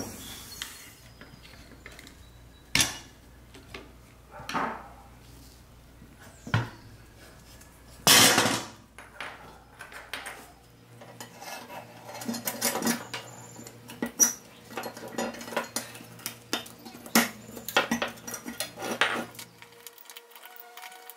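Pressed-steel toy truck parts clinking and knocking as they are handled and set down, a few separate knocks at first, the loudest about 8 seconds in, then many lighter, quicker metal clicks and taps.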